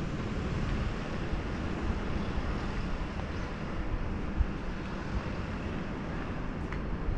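Wind buffeting the microphone: a steady low rumble over an even hiss of outdoor ambience.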